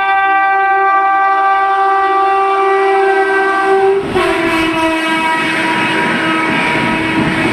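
WAP-7 electric locomotive sounding its horn in one long continuous blast as the express approaches at speed. The horn's pitch drops sharply about four seconds in as the locomotive passes, and the noise of the coaches' wheels on the rails, a rumble and rattle, takes over after it.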